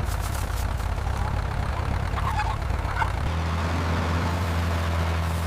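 Bulldozer engine running with a steady low hum, evening out into a smoother drone about three seconds in.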